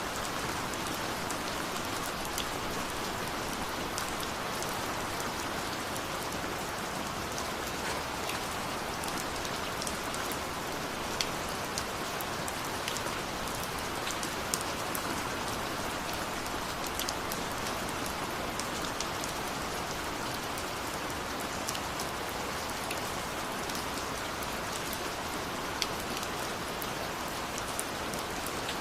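Steady rain falling, an even hiss with scattered sharp ticks of individual drops striking close by.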